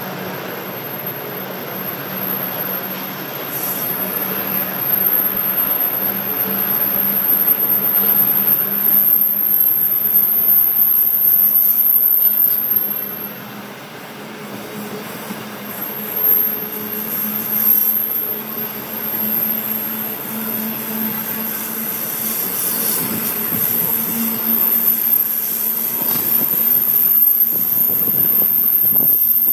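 Loaded freight wagons of an ore train rolling steadily past on the track, with wheels running over the rails and a thin high-pitched squeal from the wheels through most of it. The sound eases briefly about halfway through.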